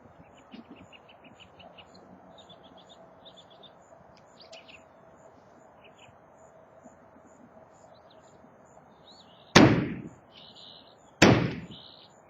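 Birds chirping faintly, then two heavy hammer blows on the silo being demolished, about nine and eleven seconds in, each with a long fading tail.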